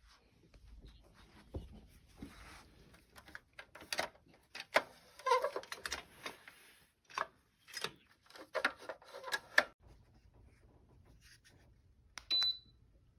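Clicks, knocks and rattles of hard parts being handled, bunched together for several seconds, then a short high electronic beep near the end.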